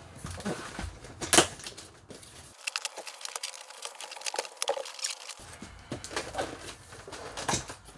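Large cardboard TV carton being opened by hand: a run of small clicks, scrapes and rustles from the tape and flaps, with one sharp snap about a second and a half in.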